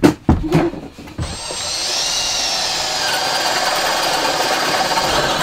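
A few knocks, then about a second in a power drill starts boring through a painted wooden cabinet panel and runs steadily.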